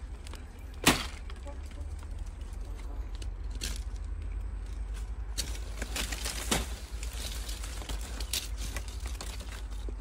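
Sharp snaps and crackles of twigs and leaves, with one loud crack about a second in and several smaller ones later, over a steady low rumble.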